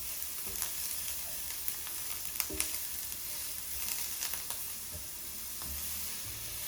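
Sliced onions sizzling in hot oil in a frying pan, a steady frying hiss broken by a few light clicks.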